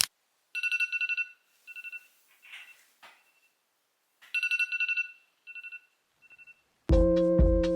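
Phone alarm going off: a trilling electronic tone in repeating bursts, one longer burst followed by two shorter ones, heard twice. Music comes in near the end.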